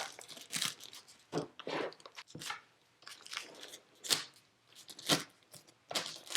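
Seal on a product box being cut and torn open: a run of short, irregular ripping and scraping sounds.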